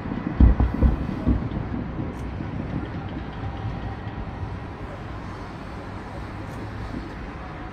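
Distant fireworks: a few deep booms in quick succession in the first second and a half, then a steady low rumble.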